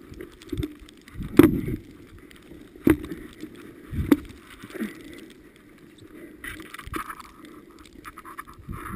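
Handling noise from a Honda CRF150F dirt bike being hauled upright out of deep snow: a few sharp knocks and thumps, the loudest about a second and a half, three and four seconds in, with scuffing in between, heard through a helmet-mounted camera.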